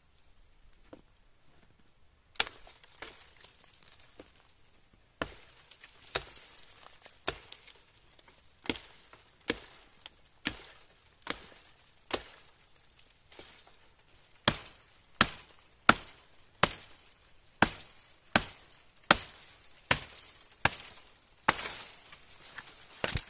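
Repeated chopping blows of a blade into the wood of tree branches, sharp knocks at about one to one and a half a second, louder in the second half.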